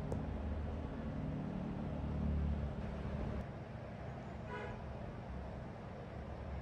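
Low engine rumble, stronger for the first three and a half seconds and then easing off, with one brief pitched beep about four and a half seconds in.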